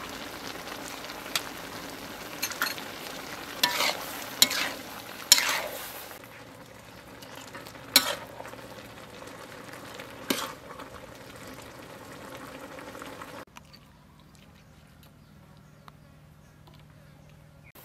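Stir-fry of shrimp and sponge gourd sizzling in a wok while a metal spatula stirs it, with sharp clacks and scrapes of the spatula against the pan. After about six seconds the sizzle fades and two sharp clinks of dishware follow, then it goes much quieter.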